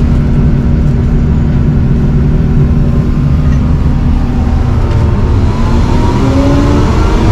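Atlas Copco PowerRoc T45 drill rig's diesel engine running loudly, its pitch rising from about five and a half seconds in as the engine speeds up.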